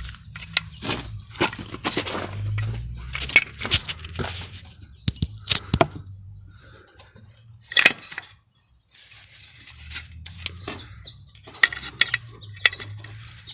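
Sharp plastic clicks, knocks and rustling as a car fog light's bulb socket and wiring connector are handled and plugged in, with a dozen or more separate clicks spread irregularly through.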